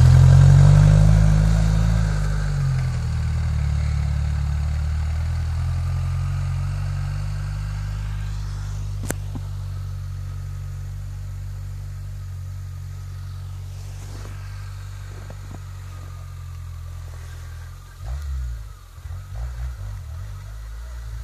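Suzuki Samurai 4x4's engine running at low revs as it drives off-road through snow, loud at first and slowly fading. Near the end the revs rise and fall unevenly.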